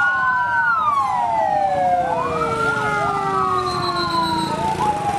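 Several fire-engine sirens wailing at once, their pitches gliding slowly and crossing one another, mostly drifting downward.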